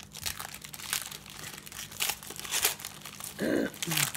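Foil trading-card pack wrappers crinkling and tearing as two packs are opened by hand, an irregular crackle throughout. A short vocal sound comes a little over three seconds in.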